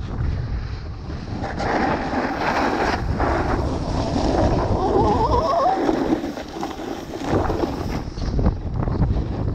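Wind rushing over the camera's microphone and a snowboard scraping over packed snow during a run down the slope. The scraping hiss swells about a second and a half in and eases shortly before the end.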